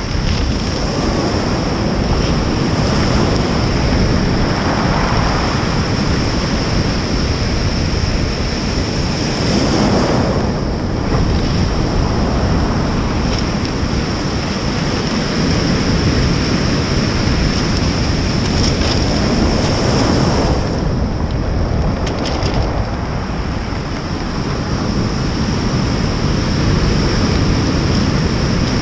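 Ocean surf breaking and washing up over a stony beach, with wind buffeting the microphone. Waves surge louder every few seconds as they crash.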